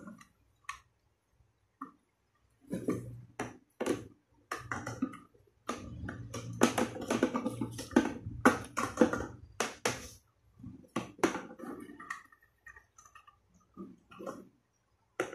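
Plastic toilet-cistern fittings clicking and knocking against the walls of a plastic cistern as the fill valve and flush parts are handled and fitted inside it. The clicks and knocks come irregularly, crowded together through the middle and sparser near the end.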